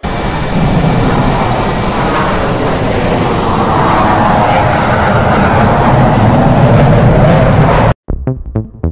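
Loud, steady rushing and rumbling noise that cuts off suddenly near the end, followed by the first beats of electronic music.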